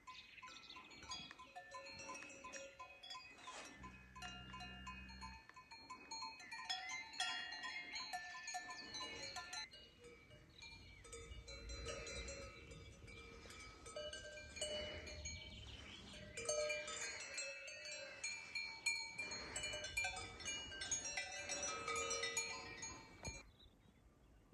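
Many livestock bells ringing and clanking together at different pitches, as from a herd of goats or sheep wearing bells; the sound cuts off abruptly near the end.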